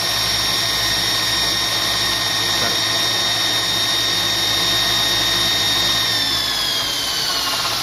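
Kalamazoo 2FS72 2x72-inch belt sander, driven by a separately attached motor, running with a steady whine. About six seconds in the whine starts to fall in pitch as the machine winds down.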